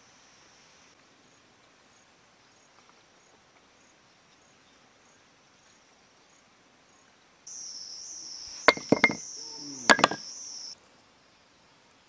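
Bamboo pieces of a trap knocking and clicking sharply, five or so times in quick succession near the end. They sound over a steady high insect buzz that grows much louder for about three seconds, starting and stopping abruptly.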